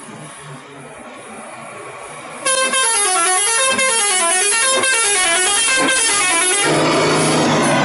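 Bus 'telolet' multi-tone horn playing a quick melody of notes stepping up and down, starting loudly about two and a half seconds in over quieter street noise. Near the end the tune gives way to a loud noisy blast with a low steady tone.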